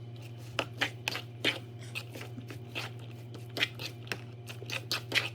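A utensil clicking and scraping against a bowl as cooked pancit canton noodles and cabbage are tossed with sauce: many short, irregular knocks and scrapes.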